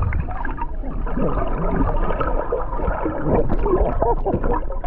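Lake water gurgling and bubbling around a camera held just under the surface, heard muffled and underwater, with a steady low rumble and many quick warbling bubble sounds.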